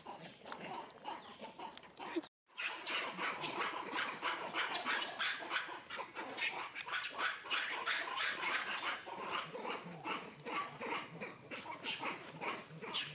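Macaques calling: many short, sharp calls overlapping in quick succession, after a brief cut to silence about two seconds in.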